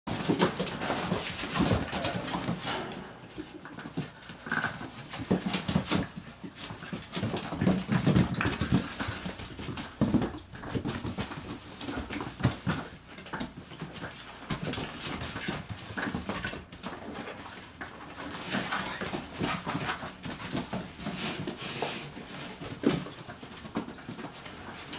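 Border collie puppies whimpering and yipping, with many short clicks and scrapes from the puppies scrambling about on the pen floor.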